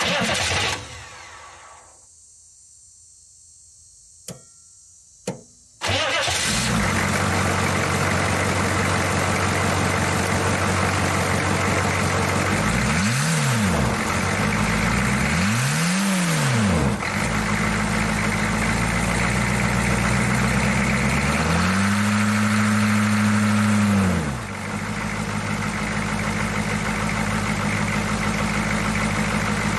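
1982 Chevy C10's 6.2 L V8 diesel engine starting. A loud knock at the start and two sharp clicks from the glow plug relay come first, then the engine catches at about six seconds and settles into a steady idle. It is blipped twice, then held at higher revs for a couple of seconds before dropping back to idle.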